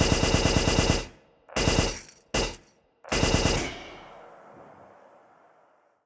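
Automatic rifle fire in rapid bursts of about ten shots a second: a long burst, two short ones, then a last burst that rings out and fades over about two seconds.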